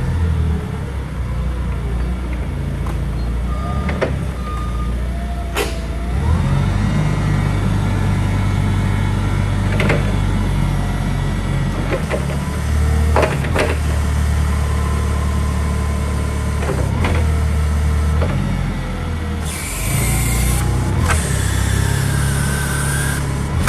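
Hyster 60 propane forklift running, its engine note stepping up and down as the operator works the mast and forks. Several knocks and clanks from the carriage and forks, squeals that slide up and down in pitch, and a hiss near the end.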